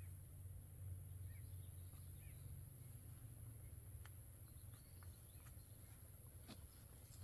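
Faint outdoor ambience: a steady low hum with a few short, distant bird chirps and scattered faint clicks.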